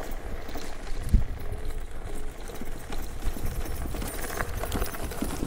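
Electric scooter jolting over a bumpy dirt trail: irregular knocks and rattles from the frame and suspension over a steady low rumble, with a heavier thump about a second in.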